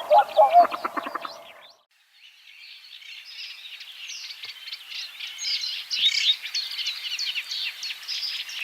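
Lower-pitched bird calls fade and stop about a second and a half in. After a brief silence, a dense chorus of small birds starts up, many short high chirps overlapping and growing louder.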